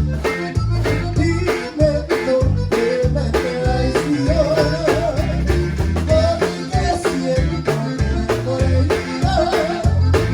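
Live conjunto band playing a song: a wavering lead melody over changing bass notes and drums keeping a steady beat.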